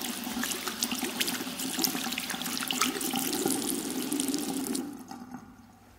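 Water from a tap running into a washbasin and splashing in the bowl, stopping abruptly about five seconds in, with a short trickle as it dies away.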